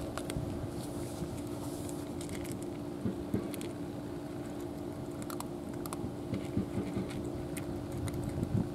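Two cats crunching dry kibble from plastic bowls, a scatter of small crisp crunches and clicks that grows busier in the second half, over a steady low hum.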